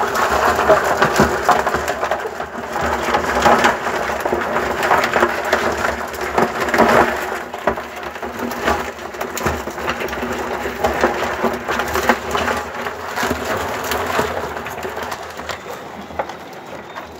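Live crabs scrabbling and clattering against each other and the sides of a plastic bucket as a hand rummages among them: a dense crackle of many small clicks, like rain. It grows fainter near the end.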